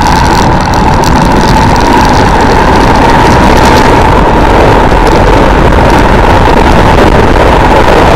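Armstrong MT500 military motorcycle's single-cylinder Rotax engine running steadily while the bike rides uphill, loud and unbroken.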